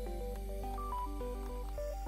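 Background music: a melody of short notes stepping up and down over a steady low bass.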